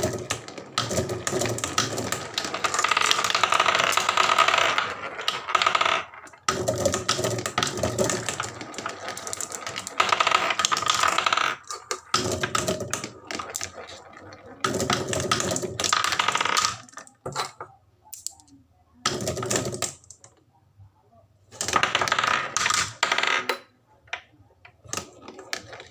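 Marbles rolling and clattering down a HABA wooden marble run. The sound comes in several runs of a few seconds each, with dense clicks and a rolling rumble, and short pauses between them.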